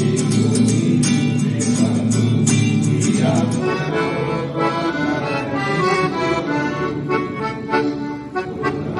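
Instrumental music led by an accordion, with a steady beat; the low bass notes drop away about three and a half seconds in.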